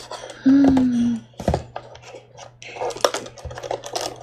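Typing on a computer keyboard, a run of quick key clicks, after a short hummed vocal sound from the typist about half a second in.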